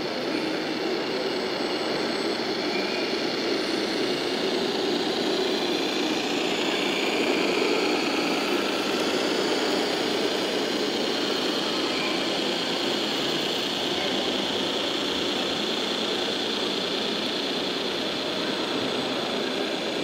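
Radio-controlled Scania model truck running steadily as it drives, a continuous engine-like drone over the steady noise of a busy hall.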